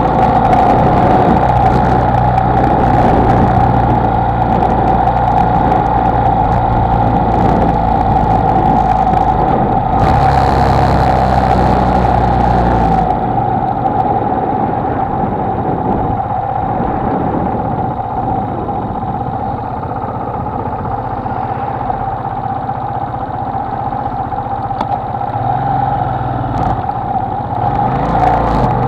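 Honda XLR125R single-cylinder motorcycle engine running while riding, with a steady rushing noise over it. The engine note fades back about halfway through and rises again near the end as the throttle opens.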